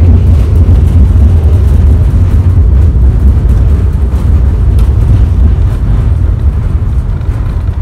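Loud, continuous low rumble of a train running close by.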